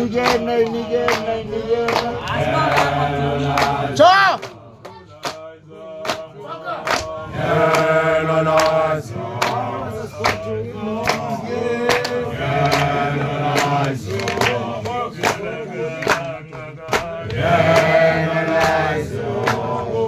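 A group of people, men's voices among them, singing and chanting together over a quick steady beat of sharp hits. A loud rising whoop comes about four seconds in, and the singing thins for a few seconds before it swells again.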